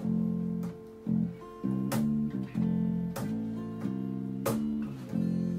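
Acoustic guitar strummed in chords that change about every second, with three sharp percussive hits about a second and a quarter apart.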